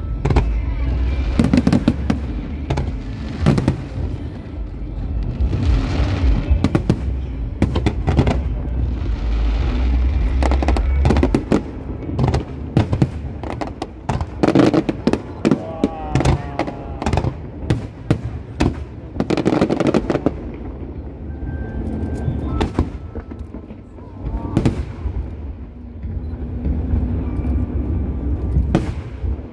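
Aerial firework shells bursting in quick succession: a dense, rumbling barrage of bangs for the first ten seconds or so, then sparser separate sharp bangs.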